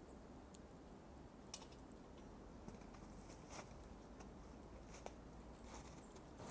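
Near silence broken by faint, scattered clicks and rustles of handling: a knife and frying pan being handled and a person getting up off a mat on snow.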